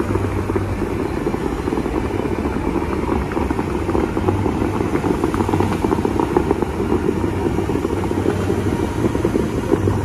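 Bellagio fountain's water jets spraying high and crashing back onto the lake: a steady, dense rush and splash over a low rumble.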